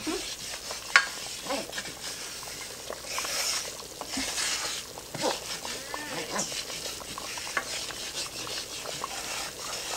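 Wooden spoon stirring and scraping a flour-and-oil roux in a nonstick skillet, the roux sizzling as it browns. One sharp knock about a second in.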